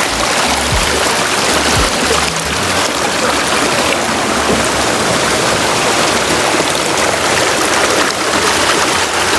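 Waterfall water rushing over rock close by, a loud, steady, even rush.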